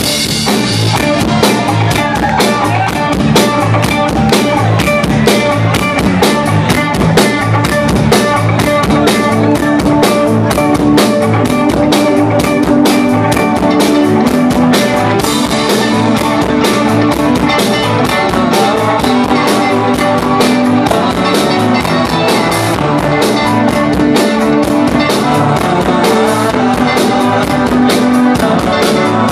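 Live rock band playing loudly: several electric guitars and a bass over a drum kit keeping a steady, driving beat.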